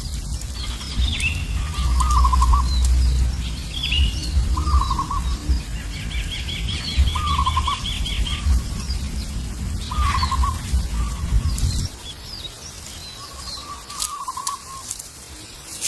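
Wild birds calling: a short, slurred call repeated every couple of seconds, with scattered higher chirps and a fast trill of evenly spaced notes in the middle. A low rumble runs under them and cuts off about twelve seconds in.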